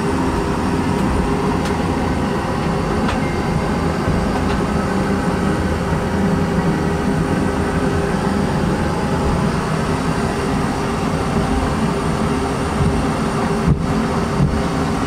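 Steady in-flight airliner cabin noise: a constant drone of airflow and engines with a steady low hum.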